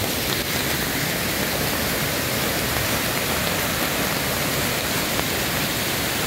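Flood-swollen river rushing over rocks in a steady, unbroken noise, with rain falling. The river is running in flood, higher than usual, its beach covered.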